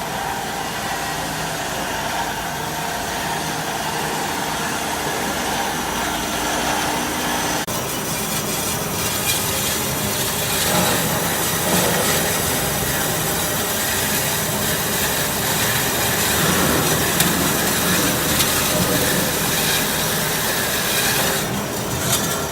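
Horizontal metal-cutting band saw running, its blade sawing through metal stock with a steady rasping hum. The sound grows hissier and a little louder about eight seconds in.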